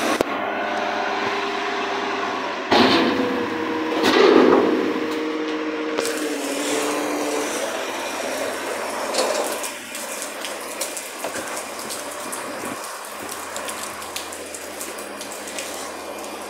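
Garbage truck running with a steady pitched drone for about the first six seconds, swelling louder twice. After that the drone gives way to the hiss of rain with scattered small taps.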